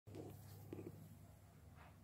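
Near silence: room tone with a low steady hum and a few faint brief sounds in the first second.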